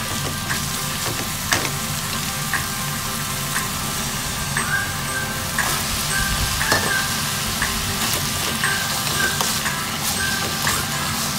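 Ground beef and onions sizzling in a hot wok while a plastic spatula stirs them, with short knocks and scrapes of the spatula against the pan about once a second. Diced potatoes and carrots go in about halfway and are stirred through the frying meat.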